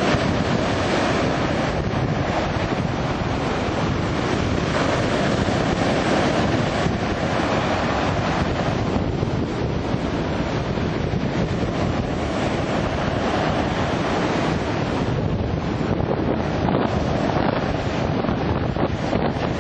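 Steady wind buffeting the microphone, a dense rushing noise without a distinct engine note.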